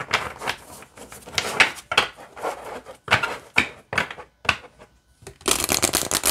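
A deck of Psychic Tarot for the Heart oracle cards in standard Hay House cardstock being handled and shuffled. First come scattered slides and taps as the deck is split. Near the end a riffle shuffle gives a fast run of card-edge clicks.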